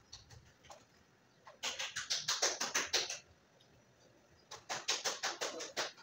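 Two runs of rapid, sharp clicking, each lasting about a second and a half, from a ringneck parrot in its wire cage.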